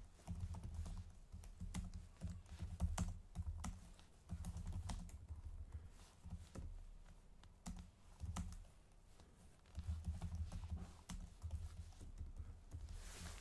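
Typing on a computer keyboard: runs of quick key clicks with short pauses between them.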